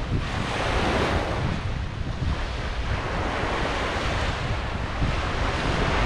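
Ocean surf: waves washing onto a beach in a steady hiss that swells and eases, with wind rumbling on the microphone.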